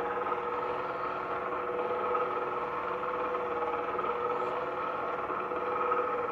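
Small DC gear motor turning a rotary table, powered from a 12 V battery through a PWM speed controller: a steady mechanical whir at a constant pitch.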